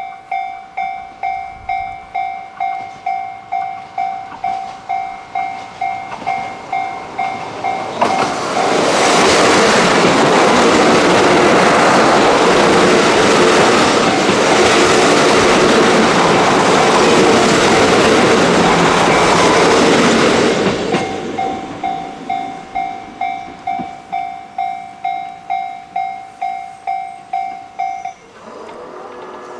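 Level crossing alarm ringing in a steady repeating clang, about two to three strokes a second. About 8 s in, it is drowned out by the loud passing of the North Rainbow Express diesel railcar train, which goes by slowly for about 13 seconds. The alarm then rings on after the train and stops shortly before the end.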